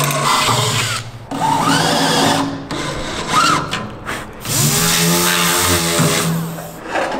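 Power drill boring holes through an aluminium panel, its motor running in three bursts of one to two seconds each, spinning up as each burst starts.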